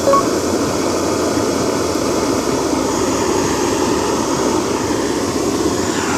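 Handheld butane gas torch burning with a loud, steady rushing noise as its flame is held to charcoal to light it.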